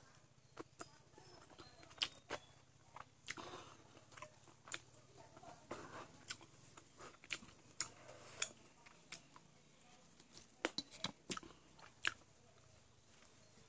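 Close-up eating of chicken: chewing and biting, with many irregular sharp clicks and crunches.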